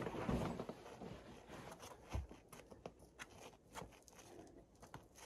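Faint scattered scuffs, scrapes and taps of bouldering: climbing shoes and hands on sandstone and shuffling feet on the dirt below, with a dull thump about two seconds in.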